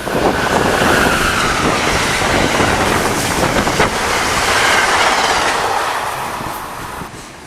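Passenger train passing close by at speed: a loud rush of cars and wheels clattering over the rails, fading away near the end.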